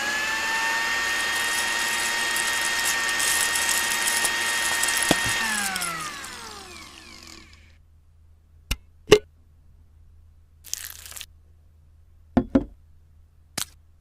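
A small electric motor spins up to a steady high whine, runs for about five seconds, then winds down with falling pitch. A few sharp clicks and taps follow in the second half.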